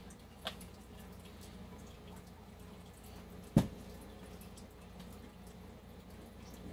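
A single sharp knock a little past halfway, with a few light clicks before it, as the 3D-printed plastic supercharger housing is handled and set down on a wooden workbench, over a faint steady hum.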